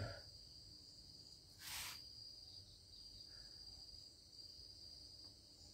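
Near silence with faint, steady cricket chirping as a high trill in the background, and one brief burst of noise a little under two seconds in.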